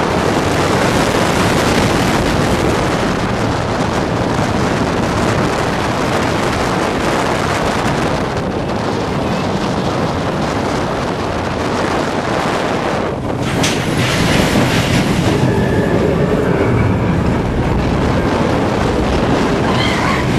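Steel roller coaster train running along its track, a steady loud rush of wheel rumble, rattle and wind, with a brief dip about two-thirds of the way through.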